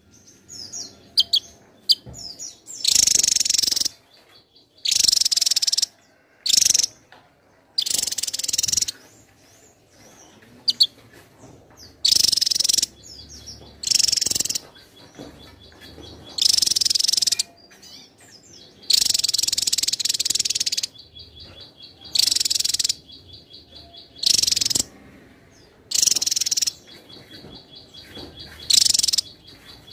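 Javan tesia singing: short, loud outbursts of very high notes, about one every two seconds, with a faint, fast trill of even notes between them.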